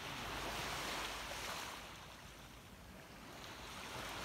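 Small waves washing up on a sandy, pebbly beach. The wash swells in the first second or so, eases off, then swells again near the end.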